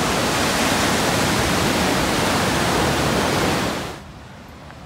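Steady, loud rushing beach noise with no distinct events: the open-air hiss of wind and surf. It drops away abruptly about four seconds in, leaving a much quieter background.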